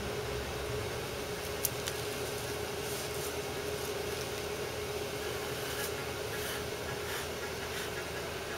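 Steady background room hum with a constant mid-pitched tone. A few faint clicks sound over it, the sharpest about one and a half seconds in.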